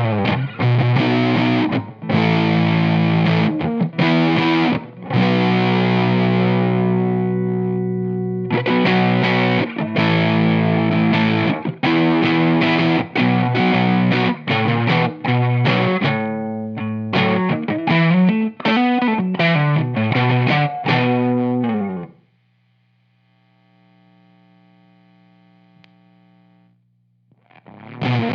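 Electric guitar through a Bennett Custom Audio Fuzz Academy germanium fuzz pedal into a 1966 Fender Bandmaster, playing heavily fuzzed riffs and ringing chords with sliding pitch runs. About 22 seconds in the playing drops to a single much quieter sustained note for several seconds before loud fuzz playing returns near the end.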